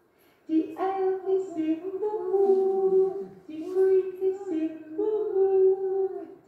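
A woman and a toddler singing a simple children's song together in short phrases of held notes, starting about half a second in, played back from an old home video through speakers in a hall.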